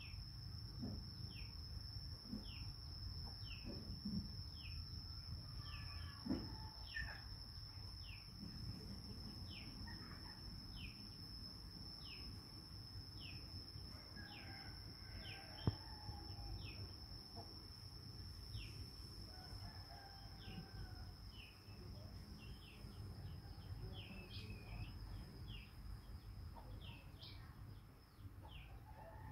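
Birds chirping: short, falling chirps repeated about once a second, over a steady high-pitched whine and a low background rumble.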